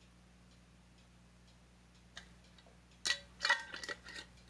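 Metal screw-on lid set on a glass jar and twisted shut: a cluster of clicks and scraping of the lid on the glass, loudest about three seconds in. Before it, a faint, even ticking about twice a second, like a clock.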